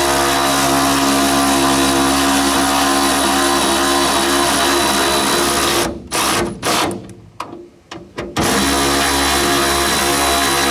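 Cordless electric ratchet (Milwaukee M12 Fuel 3/8-inch) motor whining steadily as it drives a lag bolt into a wooden truck bed. About six seconds in, it is blipped in several short pulses, then runs steadily again to seat the bolt.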